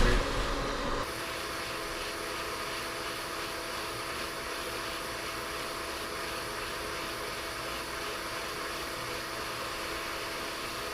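Hot air rework station blowing a steady hiss of hot air at low flow while reflowing a BGA SSD controller chip, with a faint steady hum under it. It is louder with a bump in the first second, then drops slightly and stays even.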